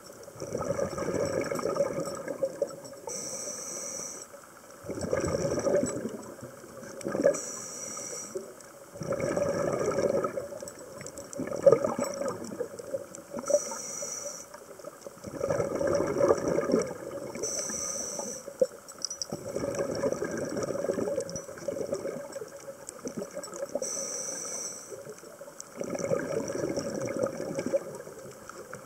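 Scuba diver breathing through a regulator underwater: a short hiss of air on each inhale, then a longer rush of bubbling as the breath is exhaled, repeating about every four to five seconds.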